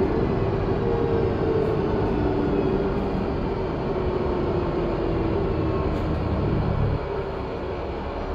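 2021 Gillig Low Floor 40ft transit bus running under way: its Cummins L9 diesel engine and Voith transmission give a steady drone whose note slowly falls in pitch, getting a little quieter about seven seconds in.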